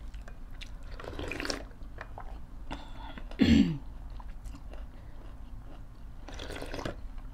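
Close-up eating sounds: chewing, and soup slurped from a spoon near the end. About three and a half seconds in, one eater makes a short low vocal sound with a falling pitch, the loudest sound here.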